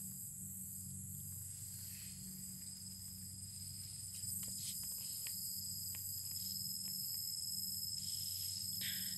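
Insects chirping in a steady, high, continuous chorus over a low steady hum, with a few light clicks about halfway through.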